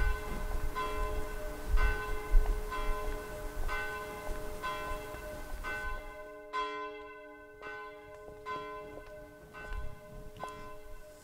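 A church bell tolling steadily, about two strokes a second, each stroke ringing on, growing gradually fainter.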